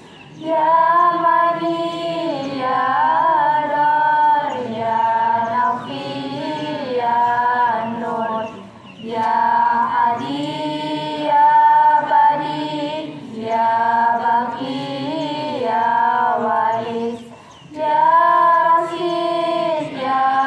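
Young female voices singing an unaccompanied Islamic devotional chant together. The long, held phrases are broken by short pauses for breath about every nine seconds.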